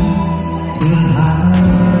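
Live band playing a tune on acoustic guitars, electric bass and keyboard, with a tambourine shaken on the beat. The music gets louder about a second in.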